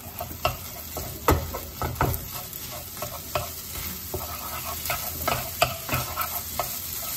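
Wooden spatula scraping and knocking in a frying pan as it stirs and breaks up rice into egg, over a steady sizzle of frying. The knocks come irregularly, the sharpest a little over a second in and at about two seconds.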